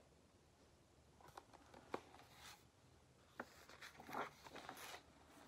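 Faint handling of a picture book's paper pages: small taps and clicks, then rustling and a swish as a page is turned near the end.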